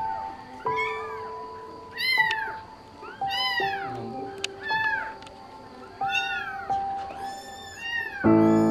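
Kittens mewing over and over in short, high-pitched calls, one or two a second, over soft background music. A louder music chord comes in near the end.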